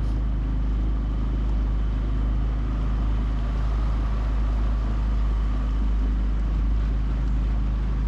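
Small boat's outboard motor running steadily, a constant hum over a deep low rumble.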